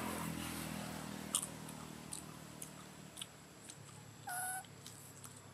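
Baby macaque chewing food: faint, scattered small clicks. A short high-pitched call sounds once about four seconds in.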